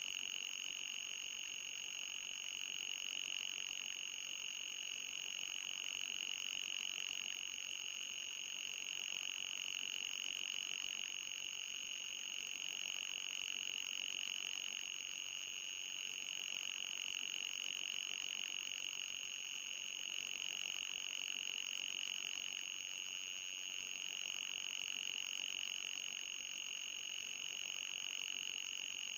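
Electronic high-pitched tone played as a mosquito-repellent sound. It swells and fades slowly every few seconds, with a fainter, higher steady whine above it.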